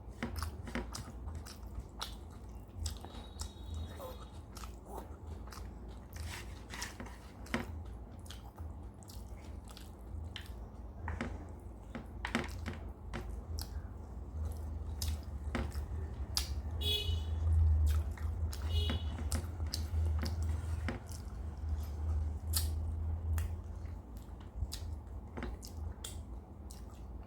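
Close-miked chewing and wet mouth sounds of someone eating a rice, dal and fish curry meal with fried vegetables, with many small clicks and smacks. A low rumble swells through the middle stretch.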